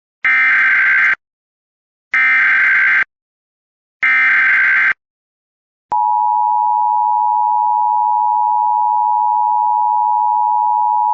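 Emergency Alert System header: three bursts of buzzy digital data tones, about a second each and a second apart, then, about six seconds in, the steady attention tone that announces the alert.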